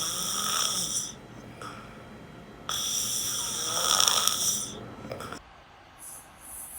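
A person snoring, with two long snores: one ending about a second in, and another starting a little under three seconds in.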